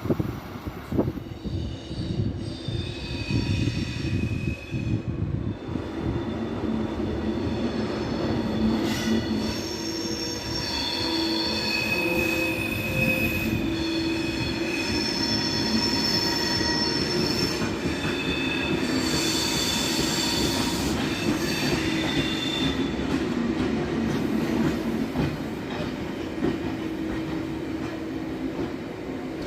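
A train rolling slowly through a station, its wheels squealing against the rails in several high, shifting tones over a steady wheel-on-rail rumble, with clattering over track joints in the first few seconds.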